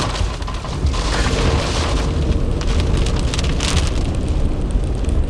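Heavy rain drumming on a car in a severe thunderstorm, with a steady low rumble underneath and scattered sharp ticks of drops striking.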